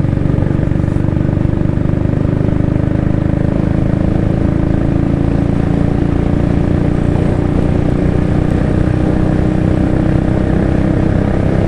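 Motorcycle engine running steadily under way at road speed, its pitch creeping gradually upward as the bike gains speed.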